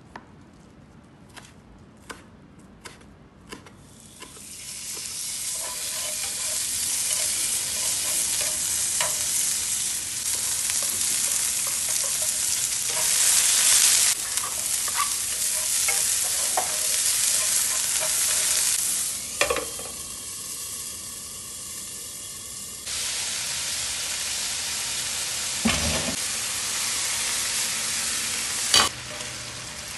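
A kitchen knife taps five times against a plastic chopping board as herbs are cut. Then sliced garlic sizzles and spits in hot oil in a frying pan, stirred with a wooden utensil. Near the end there is a thump as boiled spaghetti is dropped into the pan.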